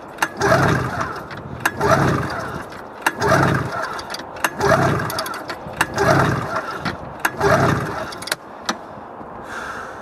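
An old snowmobile engine being cranked by its recoil pull-cord: six hard pulls about a second and a half apart, each turning the engine over without it catching, ending about eight seconds in. It is a failed cold start of a machine left standing outdoors, which the owner thinks may need its plugs cleaned and a little prime.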